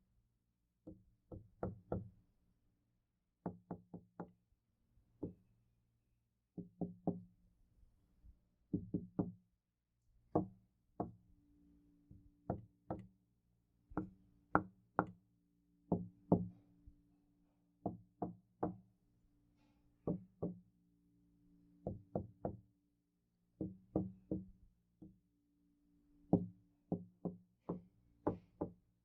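Knocking on a door in short groups of a few quick knocks, the groups about a second or two apart. Each group leaves a low, steady ring from the door.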